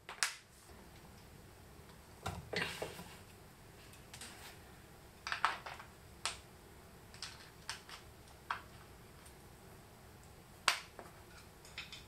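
Scattered light clicks, taps and short rustles of a thick red power cable with a copper lug and small hardware being handled and fitted, with one sharper click near the end as the loudest.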